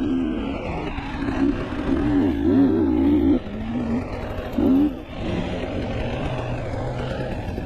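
An off-road vehicle's engine revving up and down as it climbs and winds along a rough trail, with a short surge in revs just before the halfway mark. It is sped up one and a half times, so its pitch is higher than normal.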